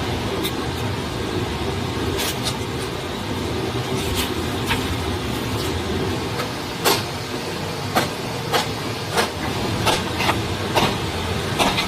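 Steady rush of a forest stream, with a series of sharp knocks, more frequent in the second half.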